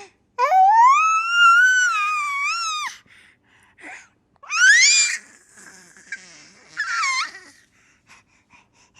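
Baby's high-pitched vocal squeals: one long drawn-out squeal that rises, holds and drops off at its end, then two short squeals that sweep upward, about five and seven seconds in.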